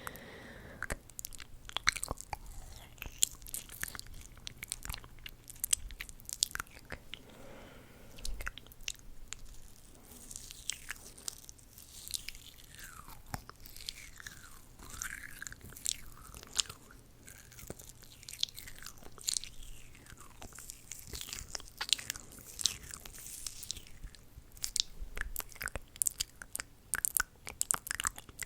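ASMR mouth sounds: a continuous run of quick wet clicks and smacks from lips and tongue, with some short sliding sounds mixed in.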